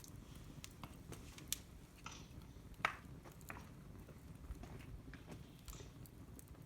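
Wood campfire crackling, with scattered sharp pops over a low rumble; the loudest pop comes about three seconds in.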